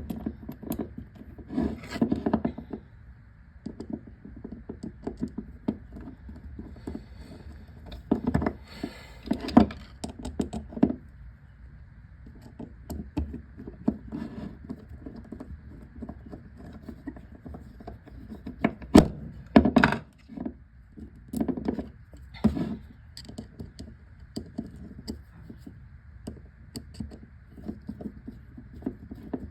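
Irregular small clicks, taps and knocks of metal carburetor parts and screws being handled and fitted while the top plate of a Tillotson carburetor is put back on, over a faint steady hum.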